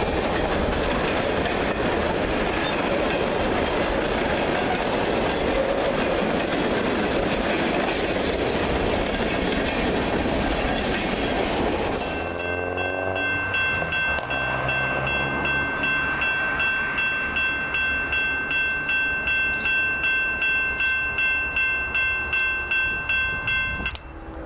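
A freight train of tank cars rolling past close by, a steady rumble of wheels on rail. About halfway through the rumble cuts off and a ringing of several steady high tones takes over, pulsing about one and a half times a second over a low hum.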